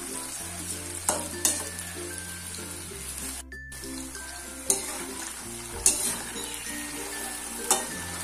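Sticks of root crop deep-frying in hot oil in a metal wok: a steady sizzle, with a spatula stirring them and clinking against the pan a few times.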